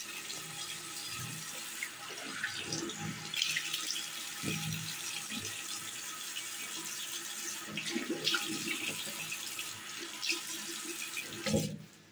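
Bathroom sink tap running with water splashing as hands scoop it up to wash a face. The running water cuts off suddenly near the end as the tap is turned off.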